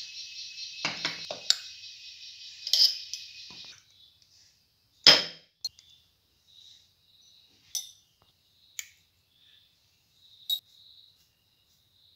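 Metal spoon clinking and tapping against a ceramic plate several times as spice powders are spooned onto it, the loudest knock about five seconds in. A steady high hiss runs under the first few seconds and stops, leaving faint high chirps.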